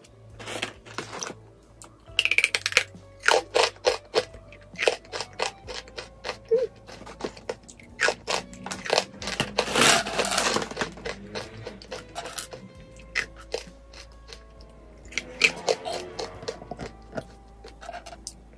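Close-up eating sounds: a string of sharp crunches and crinkles as crunchy vegetable crisps are eaten and their plastic bag is handled, with a longer rustle about ten seconds in as the crisps are tipped out onto a wooden tray. Soft background music plays underneath.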